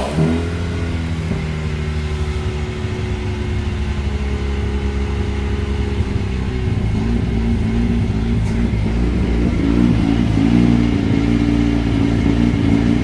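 Rotary engine idling just after a start on a freshly flashed tune, its pitch shifting partway through rather than holding steady: the idle is hunting, a sign that the tune doesn't suit the engine.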